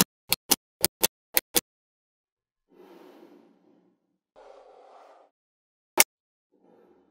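Small neodymium magnetic balls snapping onto one another, seven sharp clicks in quick succession in the first second and a half and one more about six seconds in. Between them come a few soft rustling sounds of about a second each.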